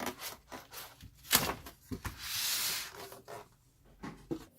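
Packaging of a new humidifier being handled and unpacked: scattered knocks and rubbing, one sharp knock about a second in, then a scraping rustle lasting nearly a second.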